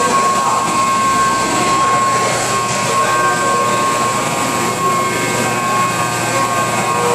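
Loud, steady din of a large hall, with several steady high whining tones running through it.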